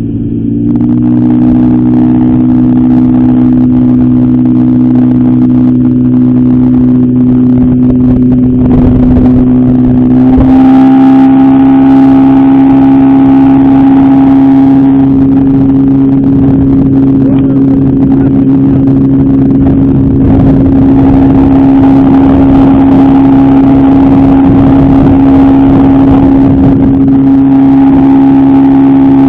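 Sea-Pro 9.9 two-stroke outboard motor running steadily while being broken in, its pitch stepping up slightly about ten seconds in and then holding.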